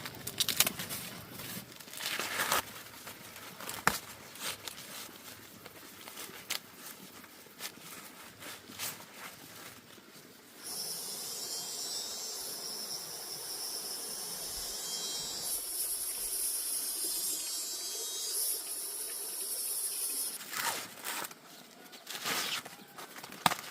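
Scattered rustles and clicks, then a steady high-pitched insect drone that starts about ten seconds in and runs for about ten seconds. More rustling and clicks follow near the end.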